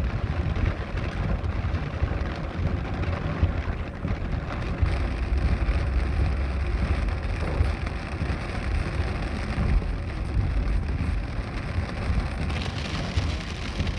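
Heavy rain pouring steadily, a dense hiss over a low rumble.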